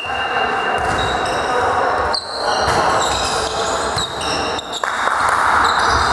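Volleyball play in a sports hall: many short, high squeaks of shoes on the court floor and a few sharp hits of the ball, over a background of voices echoing in the hall.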